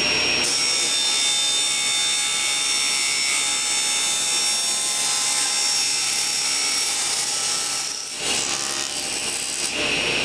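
Table saw with an 80-tooth crosscut blade ripping a strip of plexiglass: the blade's steady running turns into a harsher cutting sound about half a second in, which lasts until about 8 seconds, and then the saw runs free again near the end.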